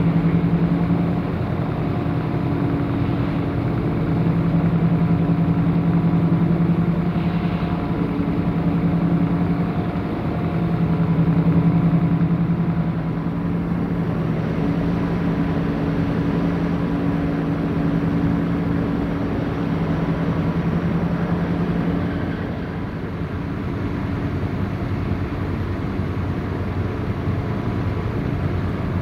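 An engine running steadily with a low, droning hum that swells and eases and drops away about 22 seconds in, over a constant noisy rumble.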